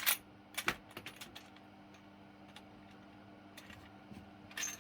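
A few sharp metallic clicks and knocks, the loudest right at the start and another about half a second later, with fainter ones after about a second and near the end.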